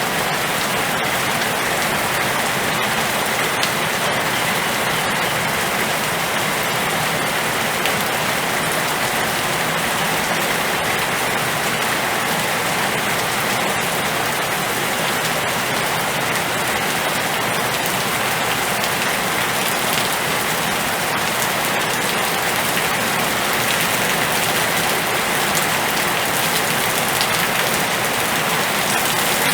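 Steady rain in a storm, an even hiss of falling rain with many small scattered drop ticks.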